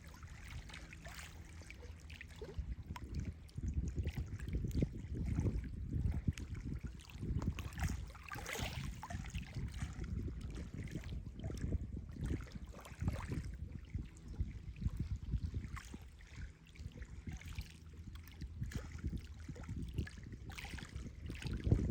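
Small waves on a reservoir lapping and splashing irregularly against the shore, with a low rumbling wash underneath.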